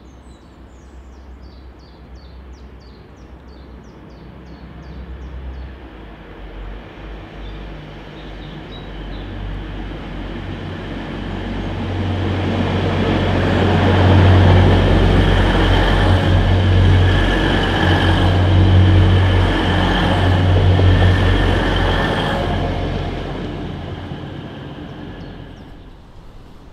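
Class 180 diesel multiple unit approaching and passing close by: a low diesel engine drone and a rush of wheels on rail build up, are loudest for several seconds as the carriages go by with a few clicks, then fade away.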